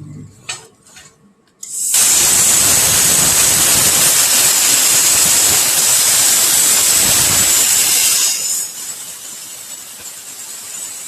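CNC plasma cutting torch cutting a round piece out of metal plate: a loud, steady hiss starts suddenly about two seconds in and drops to a quieter hiss about eight seconds in. A few small clicks come before it.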